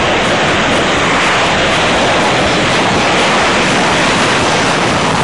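Military jet fighters' engines at full thrust on a takeoff run: a loud, steady rush of jet noise.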